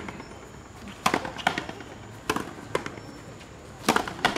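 Frontenis rally: a rubber ball struck by strung racquets and hitting the front wall of a fronton court. Six sharp cracks in three close pairs, about a second apart.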